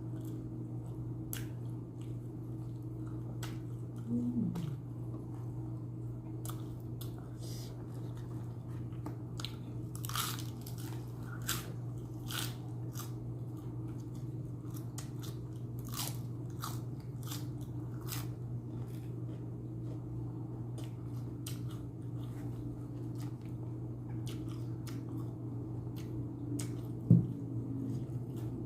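Close-up eating sounds: crunchy bites and chewing of a chicken shawarma with fresh vegetables, scattered crisp crunches, busiest in the middle, over a steady low hum.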